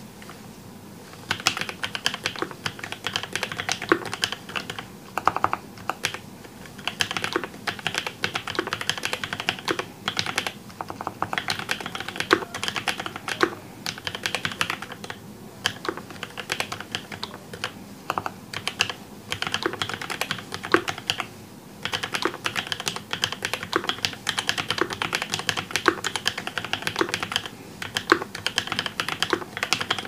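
ENDLESS 80 mechanical keyboard being typed on: fast runs of key clicks that start about a second in, with short pauses every few seconds.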